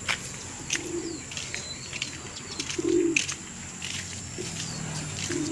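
Domestic racing pigeons cooing in a loft: three short low coos about two seconds apart, with scattered light taps and clicks.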